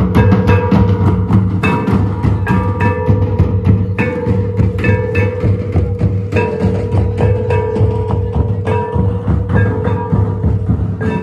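Large barrel drums beaten by hand in a fast, steady rhythm, with a held note and a repeating figure of short higher notes running over the drumming.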